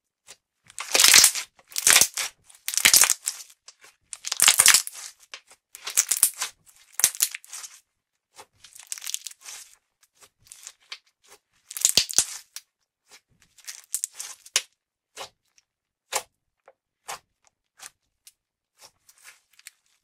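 Putty slime being pressed and stretched by hand, crackling and popping in loud bursts about once a second for the first half, then in sparser single pops and clicks.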